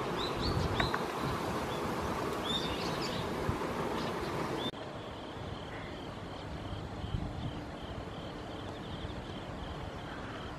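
Outdoor waterside ambience with a low rumbling noise and a few short, high bird chirps. After an abrupt cut about halfway through, a faint high chirp repeats evenly about two to three times a second.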